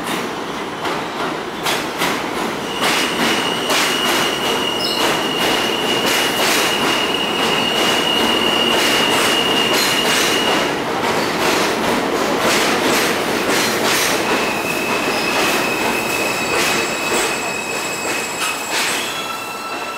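New York City Subway R160 train pulling into a station and slowing to a stop: wheels clattering over the rails with irregular clicks, a steady high squeal from about three seconds in to about eleven, and a second squeal over the last few seconds. The train is loudest in the middle and fades a little near the end.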